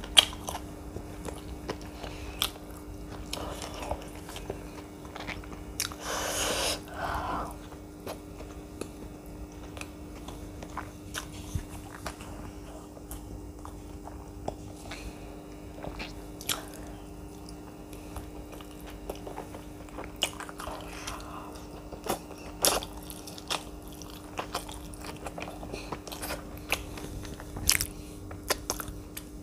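Close-miked mukbang eating sounds: a person chewing and biting into saucy street food with her fingers, with scattered crunches and wet mouth clicks. A longer, louder noisy sound comes about six seconds in, over a steady low hum.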